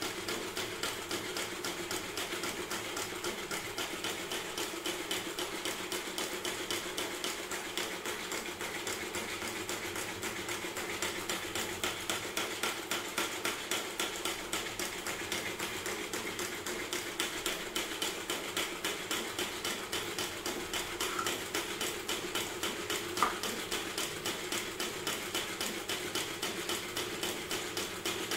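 Plastic 3D-printed four-cylinder engine model turning over steadily, its moving parts clicking in an even rhythm of several clicks a second over a constant hum, with one sharper click a little past two-thirds of the way through.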